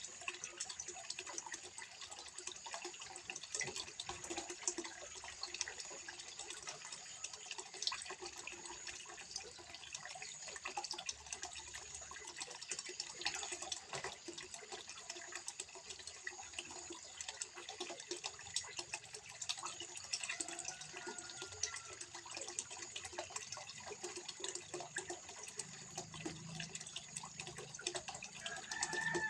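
Water trickling and splashing steadily into a small fish pond, a continuous patter of small drips and splashes.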